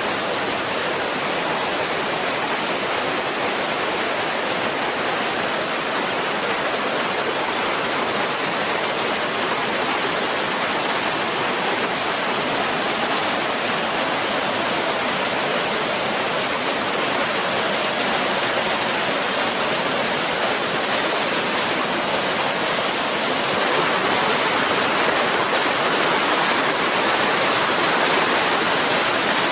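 Steady rush of a small river's flowing water, which gets a little louder near the end.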